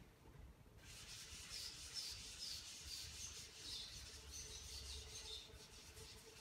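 Faint rubbing of a board eraser wiping chalk off a chalkboard, in quick back-and-forth strokes of about two or three a second that start about a second in.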